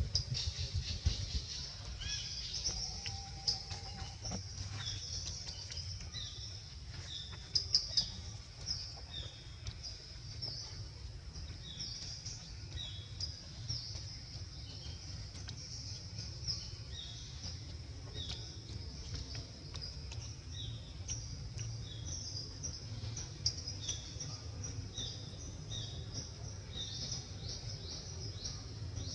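Birds chirping: short high chirps repeating about once a second, over a steady low rumble.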